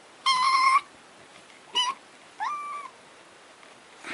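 Kitten mewing: three high-pitched mews, the first about half a second long, a short one near the middle, and a fainter one that rises and then holds.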